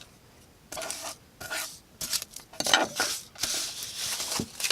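Folding knife blade drawn through material in several short rasping cutting strokes, then a longer continuous scrape over the last second and a half.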